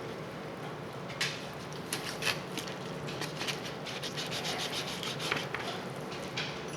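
Knife cutting through smoked pork ribs on a cutting board: scattered short scrapes and clicks, starting about a second in.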